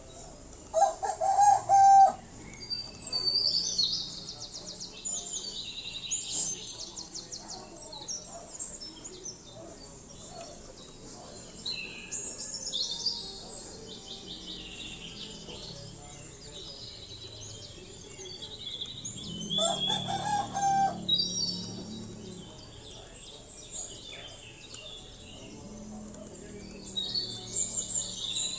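Small birds chirping on and off, with a rooster crowing twice: loudly about a second in, and again about twenty seconds in.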